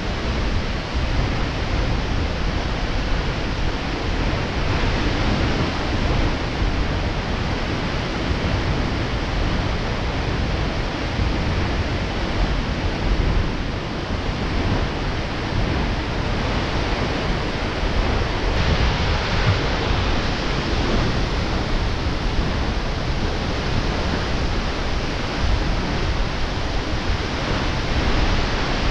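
Aberdeen Falls pouring into its plunge pool: a steady, loud rush of falling water.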